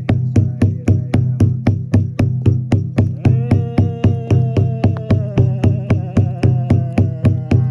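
Instrumental music: a fast, even percussive beat, about four to five strokes a second, over a low steady drone. A sustained higher tone comes in about three seconds in and slowly sinks in pitch.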